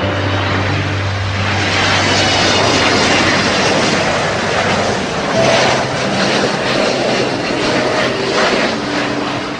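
Fixed-wing aircraft engine noise: a loud, steady rush that swells slightly partway through.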